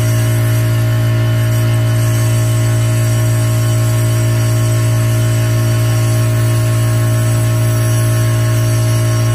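Dental suction unit (saliva ejector) running with a steady low hum.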